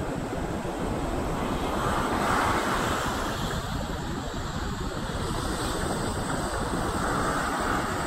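Sea surf breaking and washing up a sandy beach, swelling louder about two seconds in and again near the end, with wind buffeting the microphone.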